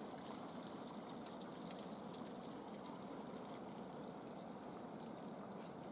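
Faint, steady trickle of meltwater running from a partly frozen spring over ice and rocks.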